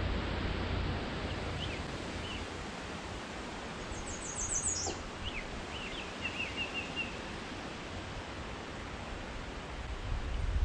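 Small songbirds calling: scattered short chirps and a rapid high trill about four seconds in, over a steady outdoor hiss with a low wind rumble.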